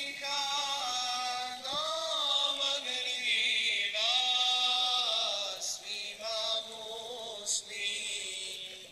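Men singing a dervish ilahija, a Muslim devotional hymn, in long held notes that bend in pitch.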